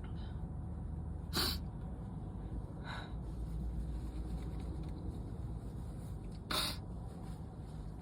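A person sneezing twice, about five seconds apart, with a fainter short breathy sound in between, as part of a sneezing fit. A low steady hum runs underneath.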